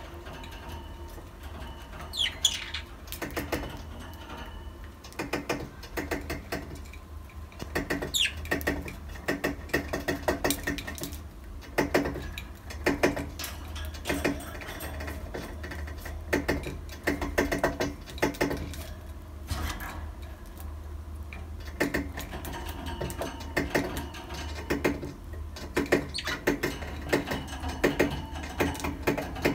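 Budgerigars in a cage making irregular runs of quick clicks and taps, with two short high chirps about two and eight seconds in.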